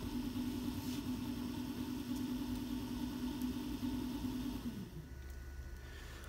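Small DC motor belt-driving a drill chuck, running with a steady hum, then winding down in pitch and stopping about five seconds in. The boost converter has cut the power because the supercapacitor bank feeding it has sagged to about 6 volts.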